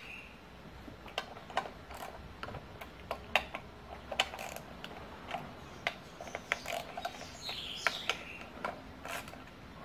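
Socket ratchet clicking in short, irregular bursts as 10 mm bolts are loosened on an aluminium intake plenum.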